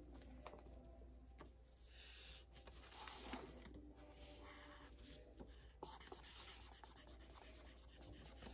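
Faint scratching of a felt-tip marker colouring on paper, in many short back-and-forth strokes.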